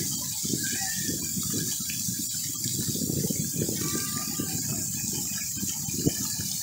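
Splash pad water jets spraying and splattering into shallow standing water, a steady rushing wash, with one short sharp tap near the end.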